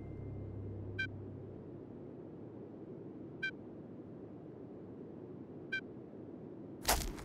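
Faint low ambient hiss from an animated film's sound design, with a short high chirp three times, about two and a half seconds apart, and one brief loud noisy burst near the end. The last notes of music die away at the very start.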